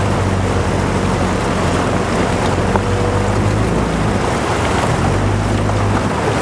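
Wind rushing over the microphone and water noise around a dragon boat under way, over a low steady hum.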